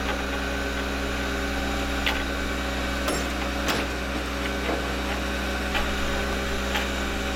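Steady hum of an idling engine, with a few faint clicks scattered through it.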